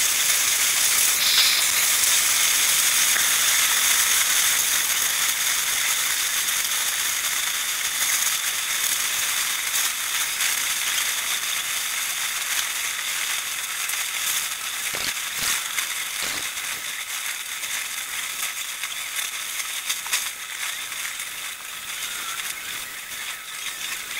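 Rain falling steadily, a dense hiss that slowly eases off as the shower passes. A few faint knocks a little past halfway.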